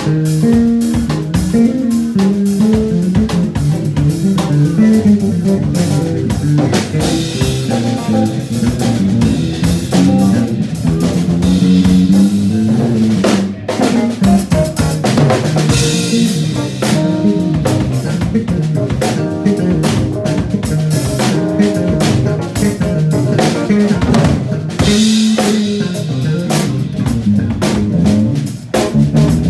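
Electric bass guitar and drum kit playing a funk tune live together: a moving bass line over a busy drum groove with rimshots and bass drum. The band breaks off briefly about halfway and again near the end.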